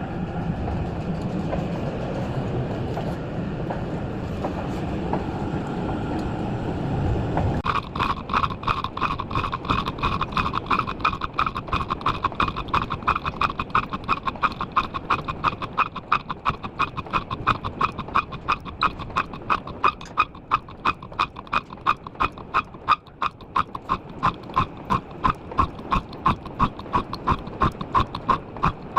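A machine runs steadily, then about seven seconds in the sound changes suddenly to a rapid, even metallic knocking, each knock ringing, which goes on at a steady rate.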